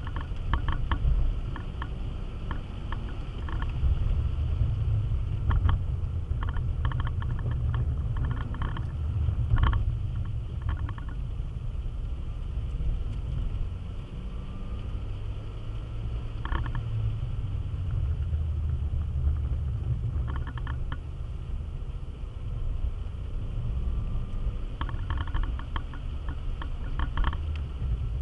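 Car driving on a wet road, heard from inside the cabin: a steady low rumble of engine and tyres, with scattered clusters of short ticks now and then.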